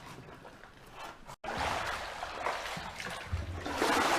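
Water sloshing and splashing around legs wading through standing floodwater in waders. It is quieter at first, cuts out for a moment about a second and a half in, then comes back louder.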